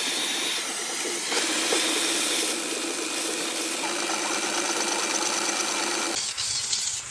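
A gas torch hissing against a gear held in a lathe chuck at the start, then a metal lathe running as a cutting tool turns the spinning steel gear: a steady machining noise with a hum. The sound changes abruptly a little after six seconds.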